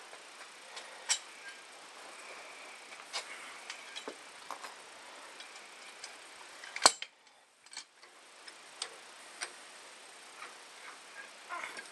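Scattered light metal clicks and clinks of a wrench and three-point hitch links being handled and fitted to a Yanmar 1100 tractor, with one much sharper click a little past the middle.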